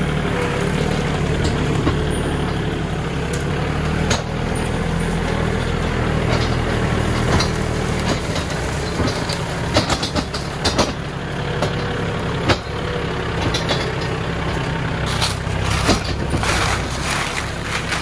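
Kubota L4018 tractor's diesel engine running steadily under load while cutting a firebreak, with irregular sharp cracks and knocks over it that come thicker near the end.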